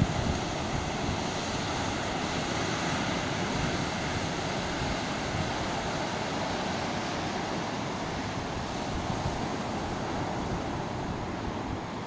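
Sea surf washing onto a beach: a steady rush of waves breaking along the shore.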